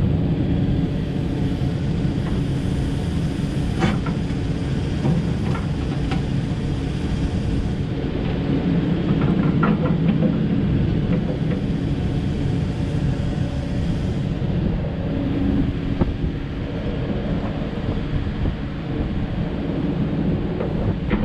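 2014 Takeuchi TB1140 excavator's diesel engine running steadily under hydraulic load as the house swings and the boom and bucket work. A few short, sharp clanks come through it.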